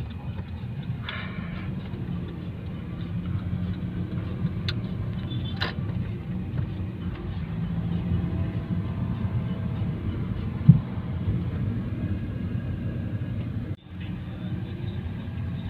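Car cabin rumble while driving slowly: a steady low engine and road noise, with a couple of sharp clicks midway and a single knock later on.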